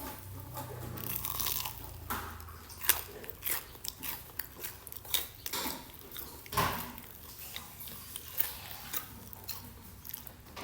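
A person biting into and chewing a crunchy corn dog, with irregular crisp crunches throughout.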